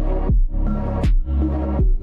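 Background electronic music with a heavy bass beat. Each beat is a sharp downward sweep in pitch, about 0.7 s apart.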